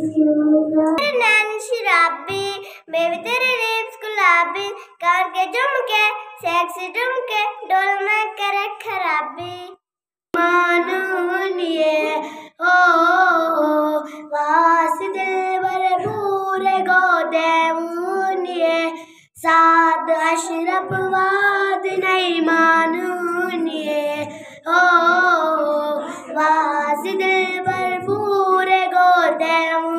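Children singing solo into a handheld microphone with no instruments. The sound cuts off for a moment about ten seconds in, then a different girl's voice carries on singing.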